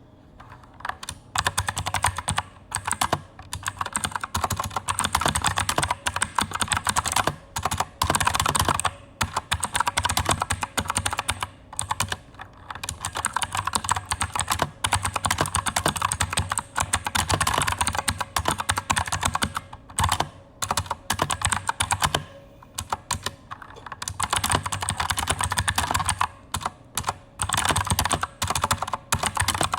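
Fast typing on a mechanical keyboard with clicky Outemu Blue switches, a dense stream of sharp key clicks with a few short pauses.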